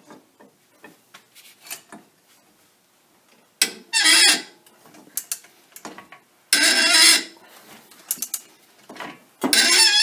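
Three-jaw gear puller's forcing screw being cranked tight with a long wrench against a Jeep Dana 30 front hub that is fused to the axle. There are three loud strained metal squeals, about 4, 7 and 9.5 seconds in, with small metal clicks and knocks between them.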